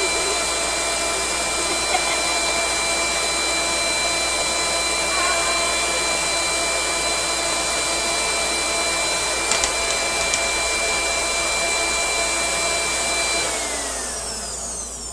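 Nutribullet blender motor running at full speed with a steady high whine, grinding sesame seeds into tahini paste. Near the end it switches off and the whine falls away as the motor spins down.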